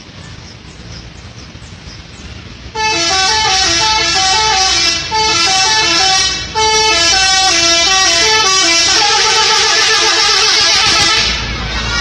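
A double-decker bus's multi-tone 'telolet' musical horn playing a quick stepping tune of several tones at once. It starts about three seconds in and runs for about eight seconds, with two short breaks. A low rumble rises near the end as the bus passes close.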